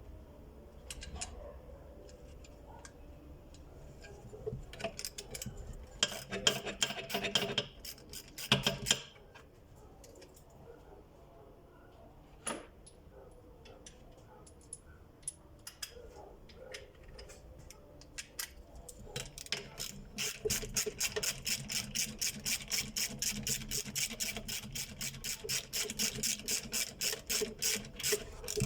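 Scattered clicks and clatter of parts being handled, then about two-thirds of the way in a clutch-motor sewing machine starts running, stitching with a fast, even clicking.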